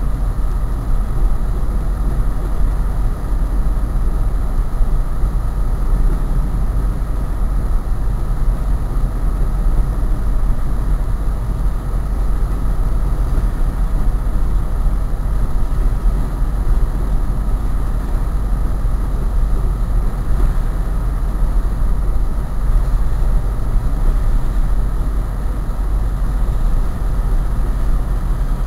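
A train running past at a steady pace: a continuous heavy, deep rumble that does not change.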